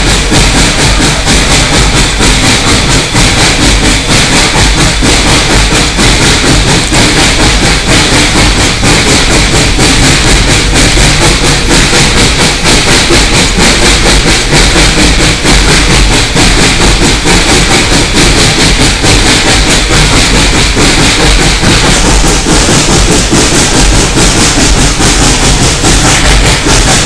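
Loud, steady noise inside the cab of narrow-gauge steam locomotive No. 190 under way: a hiss of steam mixed with the clatter of the running gear and wheels.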